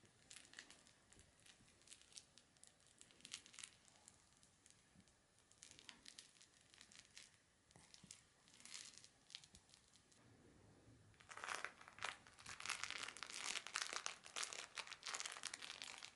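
A toy poodle chewing and tugging at a plush toy held in a hand, making a crackling rustle. It comes in short scattered spells at first, then turns dense and louder for the last five seconds or so.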